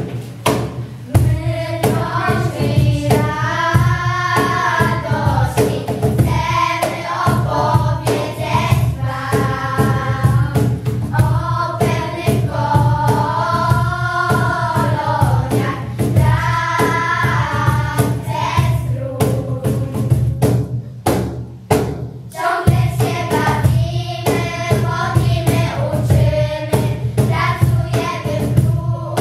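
A group of children singing a song together in Polish. The singing breaks off briefly about three-quarters of the way through, then starts again.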